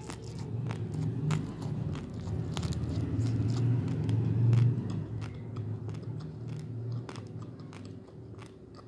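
Raw basmati rice being chewed close to the microphone: dry grains crunching in many sharp little cracks over a low chewing rumble, loudest about four to five seconds in and fading near the end.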